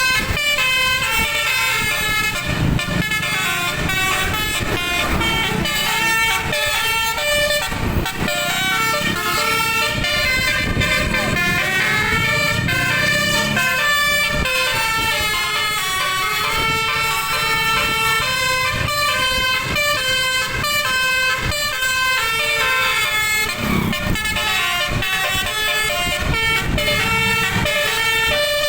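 Bus telolet horn playing a melody: several trumpet tones sounding together and changing pitch in quick steps, going on without a break, over a low rumble.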